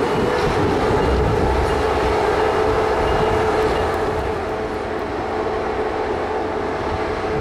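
Canadian Pacific Holiday Train cars rolling slowly along the track, a steady whine over the rumble of the wheels.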